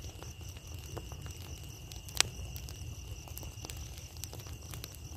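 Burning pile of rice straw crackling with scattered pops, one loud sharp pop about two seconds in, over a low rumble. Crickets trill steadily behind it.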